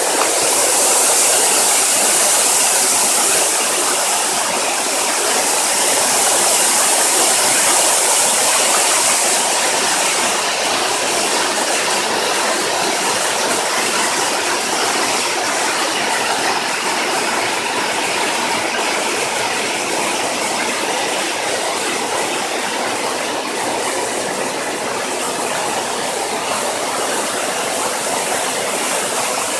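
Waterfall rushing steadily, a dense hiss of falling water, a little louder and brighter in the first several seconds.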